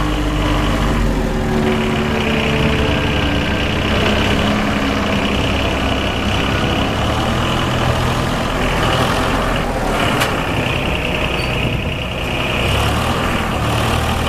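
Ford backhoe loader's 3-cylinder diesel engine running, with a single sharp click about ten seconds in.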